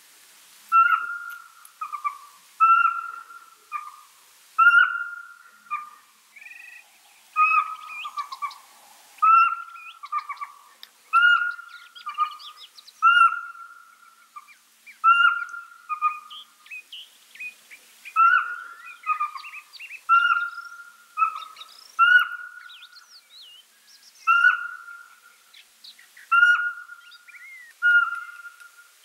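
Pygmy owl singing: a long series of short piping whistles on one pitch, about one every two seconds, often with a lower short note tacked on. Fainter chirps and quick sliding calls of small birds sound between the notes.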